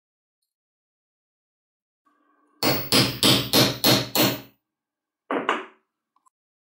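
Six quick, hammer-like knocks, about three a second, then one more a second later, as the plastic cooling fan is seated on the shaft of the angle grinder's rewound motor armature.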